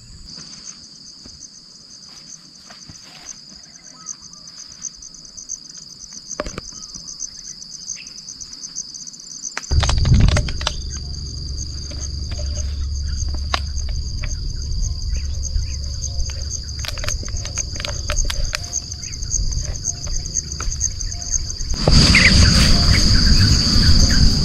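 Steady evening insect chorus, a high continuous trilling that runs throughout. About ten seconds in a low rumble joins it, and it grows louder near the end.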